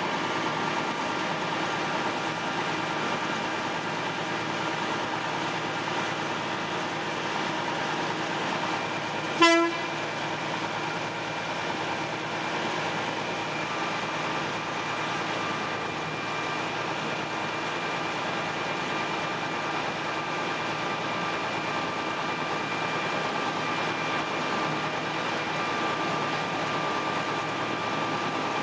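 Ogoya Railway DC121 diesel locomotive heard from inside its cab, its engine running steadily as it hauls its train. About nine seconds in, its horn gives one short toot.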